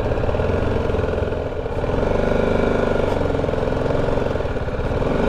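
BMW G 310 GS motorcycle's single-cylinder engine running at low revs as the bike rolls slowly over a rough dirt track. The engine dips briefly and picks up again about two seconds in.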